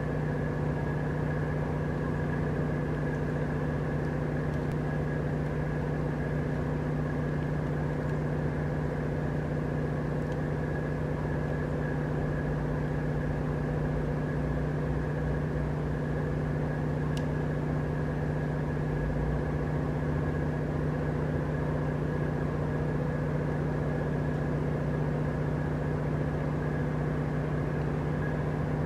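Steady low mechanical hum made of several fixed tones, like an engine running at idle, with no change in pitch or level.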